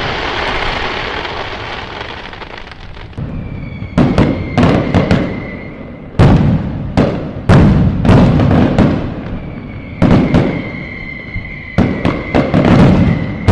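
Fireworks bursting: a string of loud bangs, each trailing off into crackling. A steady high whistle runs beneath the bursts twice.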